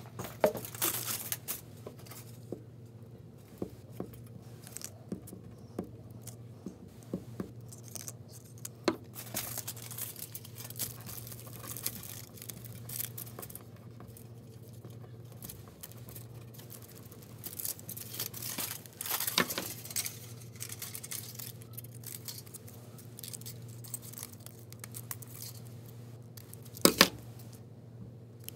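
Aluminium foil crinkling and rustling as hands press and smooth it over a cardboard template, with scattered small clicks and one sharp knock near the end.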